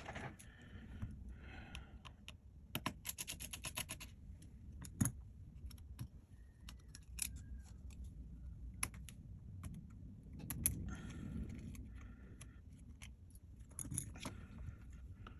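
Small hand tools clicking, tapping and scraping against the parts of a Samsung Galaxy A70 opened up for a screen replacement, with a quick run of ticks about three seconds in.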